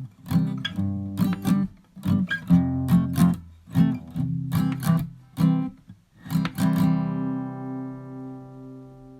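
Acoustic guitar strummed in a rhythmic pattern, ending on a last chord that rings out and slowly fades.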